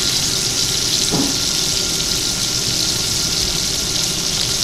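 T-bone steak searing in butter in a cast-iron skillet over high heat: a steady sizzle and bubbling of hot fat.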